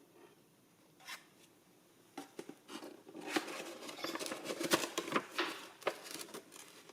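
Food packaging being handled and opened by hand. A few separate clicks come first, then from about three seconds in there are several seconds of dense rustling and crackling.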